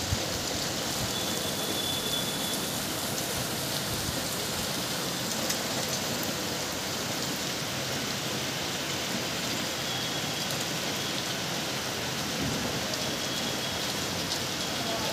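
Rain falling steadily, an even hiss with a few sharp ticks scattered through it.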